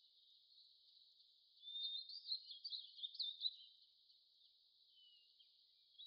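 Faint rainforest ambience: a steady high insect drone with a short run of high chirping calls between about one and a half and three and a half seconds in.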